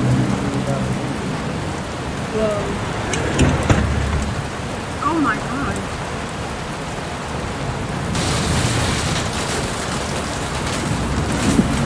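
Wind and heavy rain of an approaching tornado, heard from indoors through a glass door, with a steady low rumble under it. About eight seconds in, the hiss of the wind and rain grows sharply stronger as the storm arrives.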